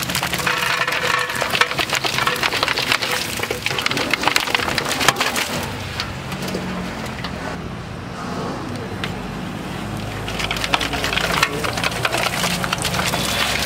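Raw chicken pieces tumbling from an aluminium basin into a large aluminium cooking pot, a dense crackly patter of many wet pieces landing. It eases off midway and picks up again near the end as more is poured in.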